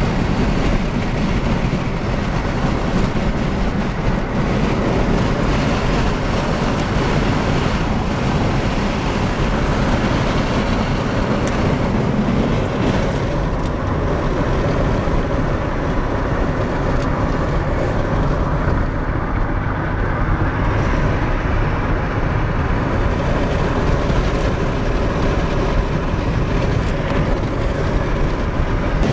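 Steady low rushing noise heard from inside a car in a thunderstorm: wind and road noise, with a few faint taps.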